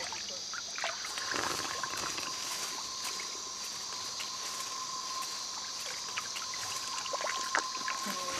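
A steady high-pitched insect chorus, with a single steady tone joining in about a second in and scattered light clicks and knocks.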